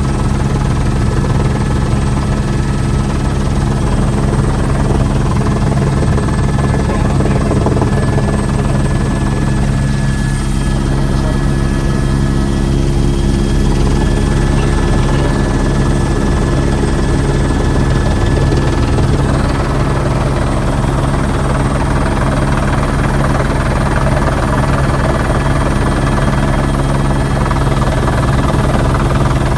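Police helicopter in flight, heard from inside its cabin: the steady, loud drone of its engine and rotors.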